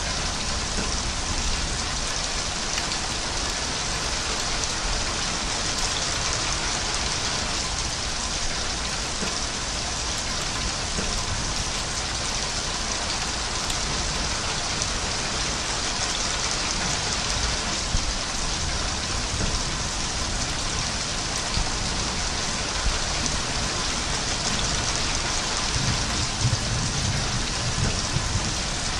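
Steady rain falling, a dense even hiss of countless drops, with some low rumbling near the end.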